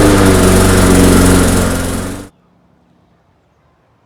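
Lawn mower running loudly at a steady pitch, then cutting off suddenly a little over two seconds in.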